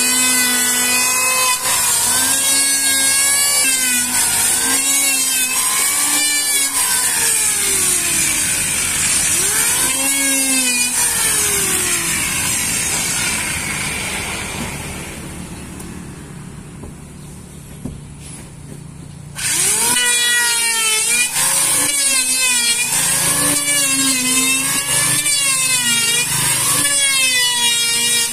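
Handheld electric planer running and shaving a wooden board, its motor whine dipping in pitch each time the blades bite into the wood and recovering between strokes, over a constant high hiss. About halfway through it winds down and goes quiet, then starts again abruptly and the planing resumes.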